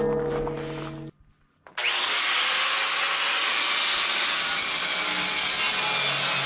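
Struck steel rings and fades out within the first second. After a brief break, an angle grinder starts about a second and a half in and runs steadily against the rusted steel chassis frame, cutting and grinding the metal.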